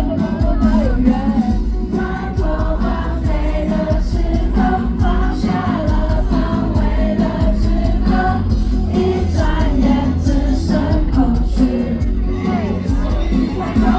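Live pop band music with singing, played loud over a PA with heavy bass.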